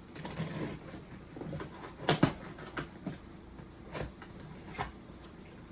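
A mailed package being opened and its packaging handled: scattered rustles and clicks, the loudest a sharp double snap about two seconds in.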